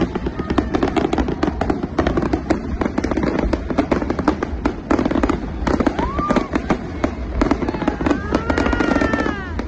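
New Year fireworks display: a dense, irregular run of shell bursts, bangs and crackles, with no break.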